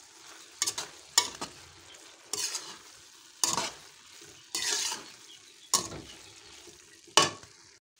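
Metal spoon stirring and scraping grated carrots frying in oil in an aluminium pot, with a faint sizzle between the strokes. There are about eight uneven scrapes against the pan, roughly one a second, as the carrots cook dry for carrot halwa.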